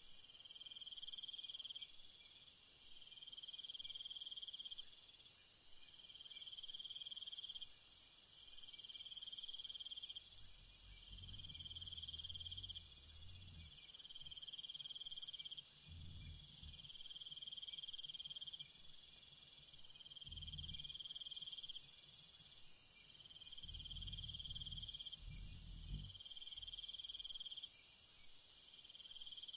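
Night insect chorus of crickets: a steady high shrill with a lower trill that pulses on and off about every two seconds. Faint low rumbles come and go a few times in the second half.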